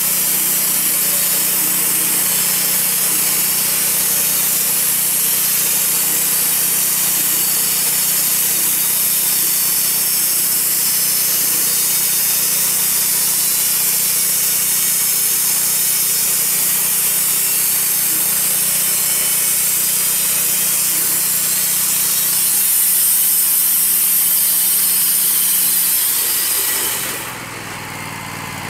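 Wood-Mizer LT40 portable band sawmill sawing through a maple log: the engine running under load with the band blade's steady cutting hiss. Near the end the blade leaves the wood, the cutting noise stops and the engine drops to an idle.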